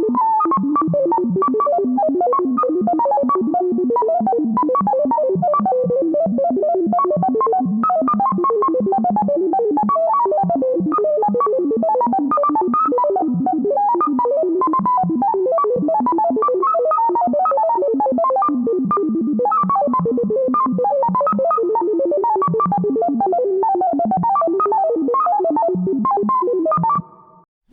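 Vintage sci-fi computer sound effect: a fast, continuous stream of short electronic beeps at random pitches, cutting off suddenly near the end.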